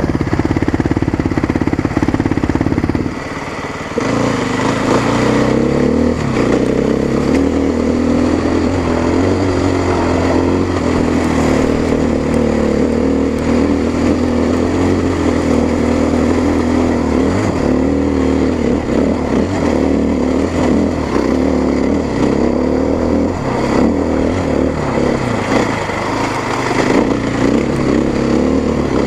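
Dirt bike engine running while the bike is ridden up a rocky trail, the engine note rising and falling with the throttle. The sound changes abruptly about three seconds in, from a fast pulsing engine to a steadier running note.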